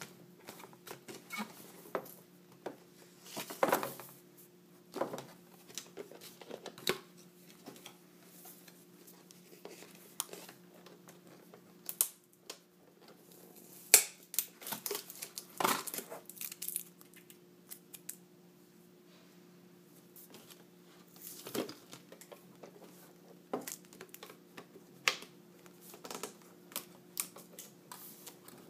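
Unboxing handling of a GoPro camera's retail packaging: cardboard and a clear plastic display case rustling, crinkling and clicking in scattered bursts, with a sharp snap about halfway through. A faint steady hum runs underneath.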